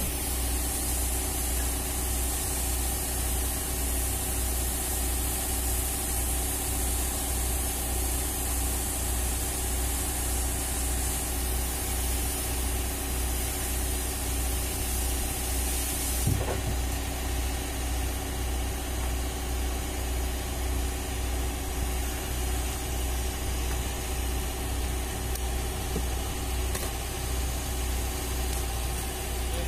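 An engine running steadily at idle with a low pulsing hum. Over it, a high welding-arc hiss runs for roughly the first half and cuts off suddenly, with a click, about sixteen seconds in.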